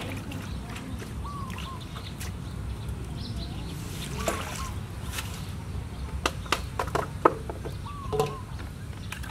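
Water splashing and sloshing in an aluminium basin as washed lettuce is rinsed and the basin tipped out about four seconds in, followed by a quick run of sharp knocks and clinks from the metal basin.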